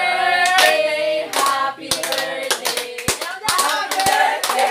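A small group of voices singing a birthday song together while clapping along in time, the claps coming about twice a second.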